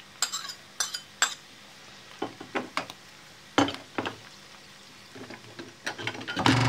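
Metal spoon scraping and clinking against a ceramic plate and a non-stick frying pan as chopped spinach is pushed into the pan and stirred into onion frying in oil, over a low steady sizzle. The clinks come irregularly, with a quick run of them near the end.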